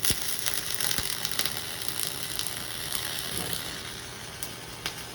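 Flux-core wire-feed welding arc crackling and sizzling steadily as an uphill fill pass is run on a T-joint. It is loudest for the first three seconds or so, then a little softer.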